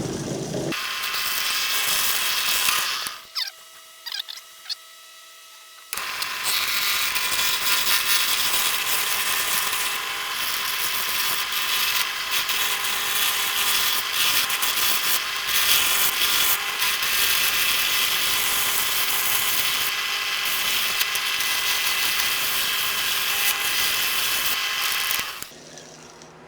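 Turning gouge cutting a square 2x4 blank down to round on an antique wood lathe: a loud, rough cutting noise. It breaks off for about three seconds near the start, leaving only the lathe's steady running hum, then carries on until it stops shortly before the end.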